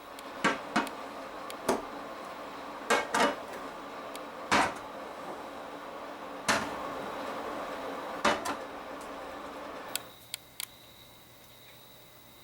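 Pickle brine poured into packed glass jars: a steady pour that stops about ten seconds in, with several sharp clinks of glass.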